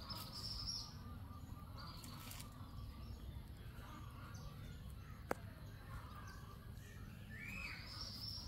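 Faint high chirping and squeaking calls from a small animal over steady low background noise, with one rising-and-falling call near the end and a single sharp click about five seconds in.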